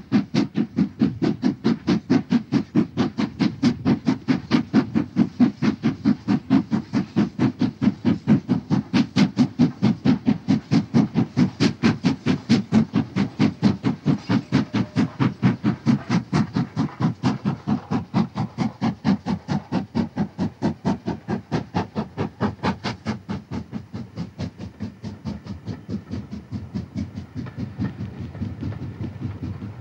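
Two-cylinder LMS Stanier Black Five 4-6-0 steam locomotive No. 5407 running with a quick, even beat of exhaust chuffs. The chuffs grow fainter over the last third as the engine draws away.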